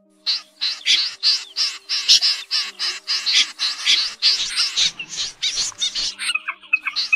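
Common snipe calling over and over, harsh rasping calls about three a second. Near the end the calls change to short, clipped notes.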